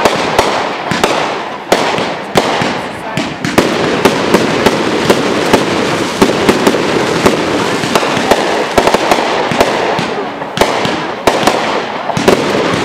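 Aerial fireworks bursting in rapid succession: many sharp bangs, several a second, over a continuous crackle.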